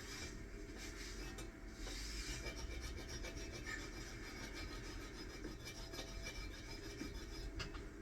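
Hand file stroking back and forth on metal, cleaning up a cut piece.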